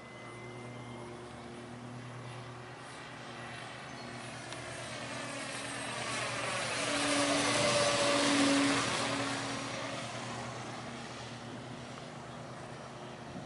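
Propeller and motor of a 2-metre radio-control model T-28 airplane making a flyby: the buzz grows louder to a peak about eight seconds in, then fades as it moves away.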